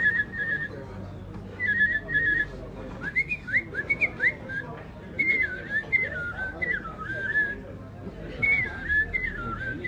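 A man mouth-whistling a bird-song imitation, around the pitch of a songbird. It opens with short rapid trills, moves to a run of quick rising slides, and ends with warbling phrases that fall in pitch.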